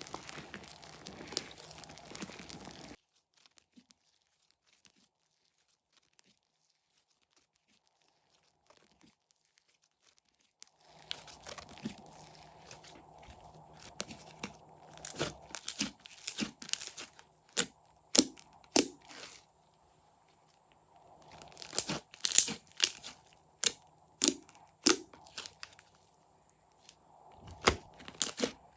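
Slime being squeezed and stretched by hand, giving crinkly crackling with sharp clicking pops. It stops after about three seconds, comes back some eight seconds later, and then goes on in louder bunches.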